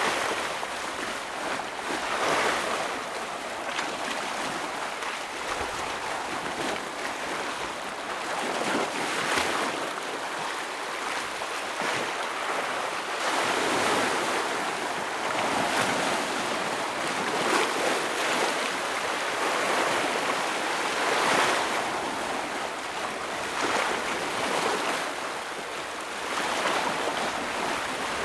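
Ocean waves breaking and washing against shore rocks, a continuous surf hiss that swells with a splash every few seconds.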